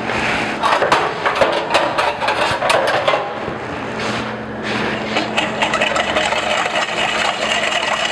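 Clatter of kitchen utensils, then, from about five seconds in, a wire whisk beating against a stainless steel bowl with quick light ticks. It is dissolving sugar and salt into rice vinegar for a sushi-rice dressing. A steady hum runs underneath.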